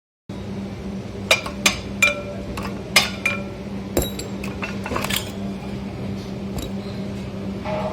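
Sharp metallic clinks with a short ring, about seven in the first five seconds, like metal tools or parts being knocked together, over a steady low hum.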